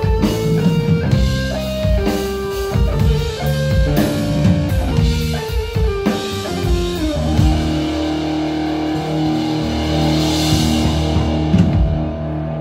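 Live rock trio of electric guitar, bass guitar and drum kit playing an instrumental passage: a guitar line of quickly changing single notes for the first several seconds, then held chords over the drums, with a cymbal wash about ten seconds in.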